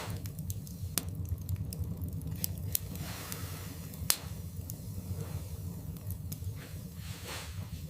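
Wood fire burning in a fireplace: irregular sharp crackles and pops over a steady low rumble of the flames, with a short soft hiss a few seconds in and again near the end.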